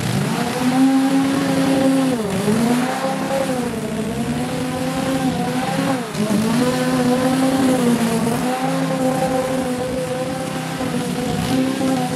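Small engine running at high revs with a steady whine, its pitch sagging briefly about two seconds in and again about six seconds in, as if it is loaded down, then recovering.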